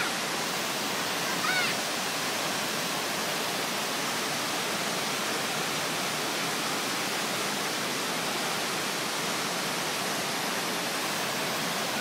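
A tall waterfall pouring down a rock face onto boulders and into a pool, making a steady, even rushing hiss.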